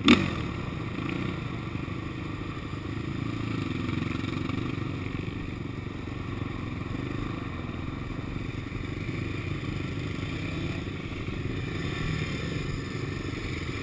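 Sport ATV engine running at low revs as the quad rolls slowly over ice on studded tyres, with a sharp knock right at the start.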